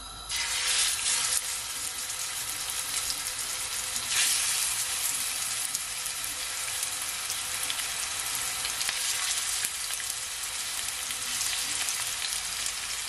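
Seasoned chicken breast pieces sizzling as they are laid into hot olive oil to brown. The sizzle starts abruptly about a third of a second in as the first piece goes in, surges again about four seconds in as another is added, then carries on steadily.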